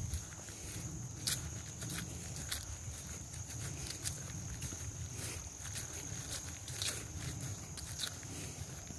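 Footsteps pushing through marsh vegetation: irregular sharp crackles and swishes, roughly one or two a second, over a low rumble.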